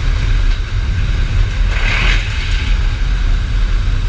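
Steady low rumble of a C-17's turbofan engines and rushing slipstream heard at the open rear cargo ramp in flight, with a brief swell of hiss about two seconds in.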